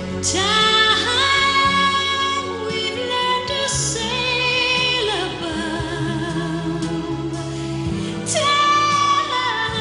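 Slow ballad: a woman singing long held notes with vibrato over orchestral accompaniment.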